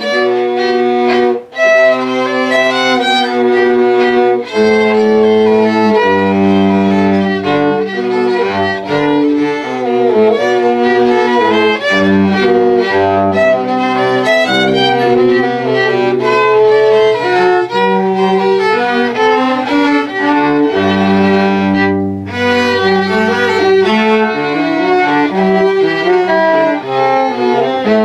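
Two violin-family string instruments bowed together in a duet, playing a melody of held notes that change pitch steadily, with a brief break about a second and a half in and another near 22 seconds.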